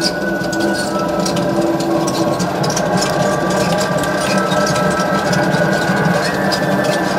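Electric potter's wheel running steadily, its motor giving a constant hum with a steady whine above it, with scattered light clicks as clay is worked on the spinning wheelhead.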